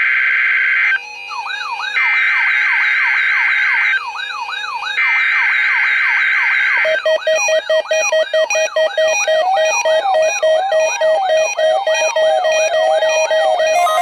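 NOAA Weather Radio SAME header data bursts, harsh two-tone buzzing in roughly two-second bursts with short pauses, the last ending about seven seconds in. Under them, and carrying on alone afterwards, is an electronic siren-like wail of quick rising-and-falling sweeps, about two and a half a second. A slower warbling tone joins it later on.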